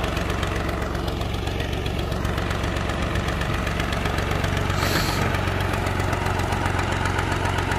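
Tractor's diesel engine running at a steady speed, with a short burst of noise about five seconds in.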